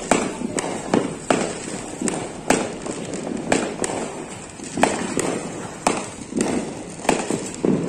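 Fireworks going off: about a dozen sharp bangs at irregular intervals, roughly one or two a second, over the steady hiss of a ground fountain firework spraying sparks.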